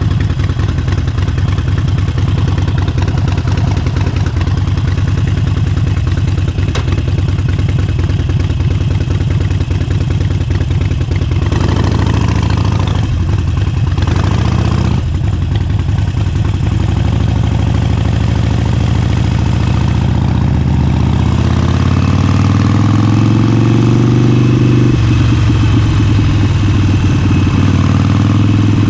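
Harley-Davidson Forty-Eight's air-cooled 1200 cc V-twin idling with a steady low pulse, changing briefly about halfway through. Its pitch then climbs steadily as the bike accelerates, drops suddenly at a gear change, and runs on steadily.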